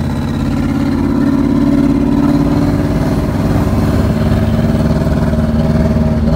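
Isuzu D-MAX 1.9 four-cylinder turbodiesel running as the pickup drives, a steady engine note that grows a little louder over the first couple of seconds. The crew says the engine still stutters.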